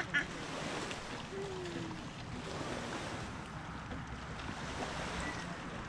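Steady rushing outdoor noise of wind on the microphone, with a couple of brief clicks at the very start.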